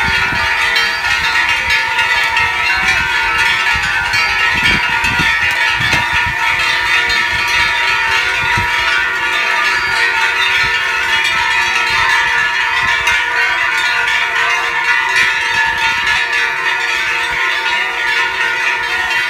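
Festival fireworks showering sparks: a steady, loud hiss with continuous metallic ringing over it and a few low thumps in the first half.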